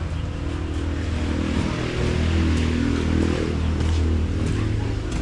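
Motor vehicle engine running steadily, growing louder about two seconds in and easing off near the end.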